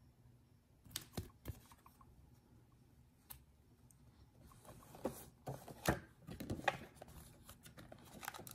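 Hands handling trading cards and a clear plastic card-box case: a few light clicks about a second in, then a denser run of plastic clicks and taps in the second half.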